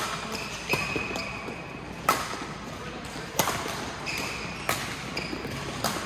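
Badminton rally: a shuttlecock struck by rackets about six times, a sharp crack roughly every second and a quarter. Between hits, short shoe squeaks on the court floor.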